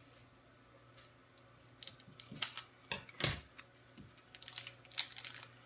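Plastic wrapper of a chocolate wafer candy bar crinkling and crackling as it is torn open by hand, in two bouts of quick crackles beginning about two seconds in.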